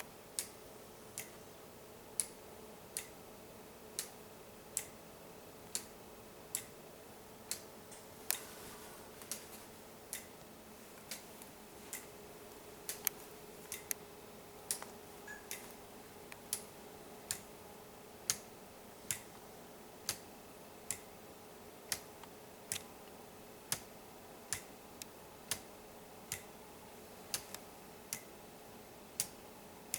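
Escapement of a homemade weight-driven pendulum clock ticking steadily, a sharp tick a little under every second as the escapement blades strike alternately to keep the pendulum rocking, with a few extra clicks between beats.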